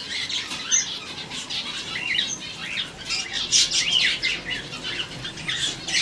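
Many aviary birds, budgerigars, finches and cockatiels, chattering together: a steady stream of short, high chirps and squawks from several birds at once, busiest around the middle.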